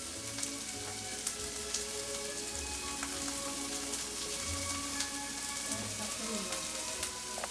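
Bite-size chicken pieces sizzling as they fry in a pan, a steady crackle with scattered small pops.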